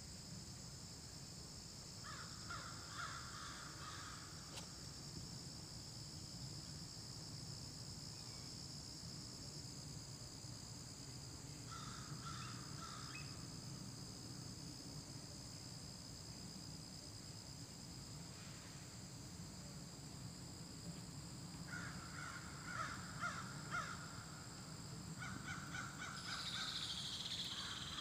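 Crows cawing in short bouts of repeated calls, about two seconds in, again around twelve seconds, and in a longer run near the end, over a steady high insect drone.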